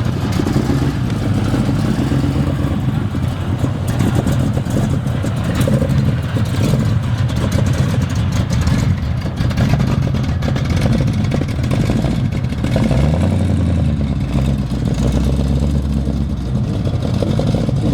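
Car engines running loudly, with one revving up about two-thirds of the way through, over a general crowd din.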